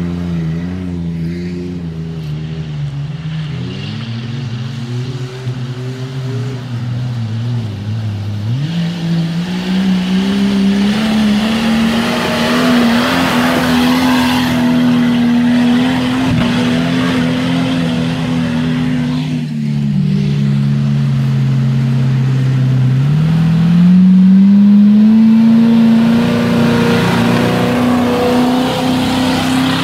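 Off-road 4x4 engines revving hard under load in mud. The engine note sags, jumps up sharply about a third of the way in and holds high, then dips and climbs again about three-quarters of the way through.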